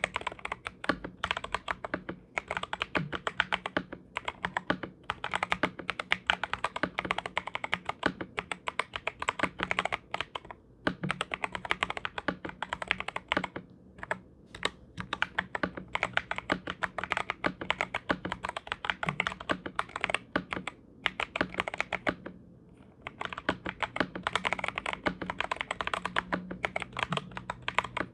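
Fast continuous typing on a 65% mechanical keyboard fitted with lubed and filmed Kailh Box Royal tactile switches, XDA PBT keycaps, foam-filled case and tape-modded PCB, giving dense muted keystroke clacks. The typing breaks off briefly twice, about halfway and about four-fifths of the way through.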